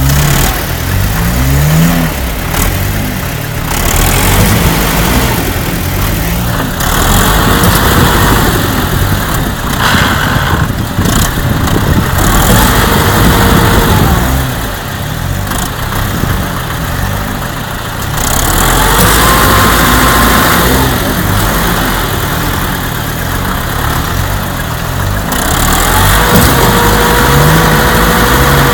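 Vehicle engines running loud and revving under load during a tug of war between a Mercedes G-Class and a tractor, swelling and easing over stretches of several seconds.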